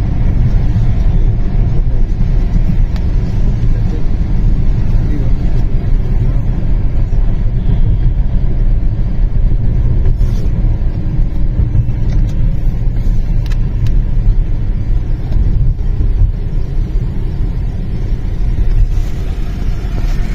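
Steady low rumble of a car driving, heard from inside the cabin: engine and road noise at a constant cruising pace.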